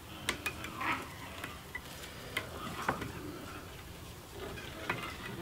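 Light handling sounds of thread being wrapped by hand onto a fishing rod blank sitting in the rollers of a rod-wrapping stand: scattered small clicks and soft rustling.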